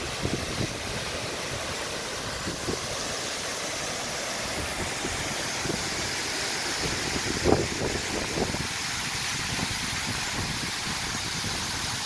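Waterfall pouring off a sea cliff into the sea: a steady rushing of falling water, with wind buffeting the microphone and one brief bump about seven and a half seconds in.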